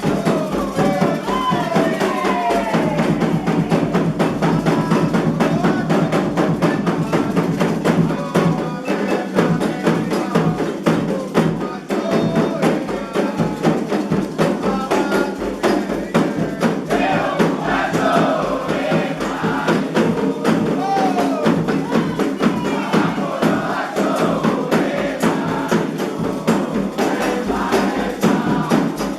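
Candomblé ritual music: a fast, steady beat of hand drums and percussion under a group of voices singing a chant for the orixás.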